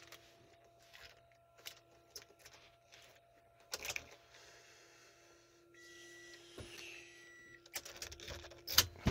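Handling noise from a phone camera held against clothing: fabric rustling against the microphone, with scattered clicks and knocks, the loudest about four seconds in and again near the end, over a faint steady hum.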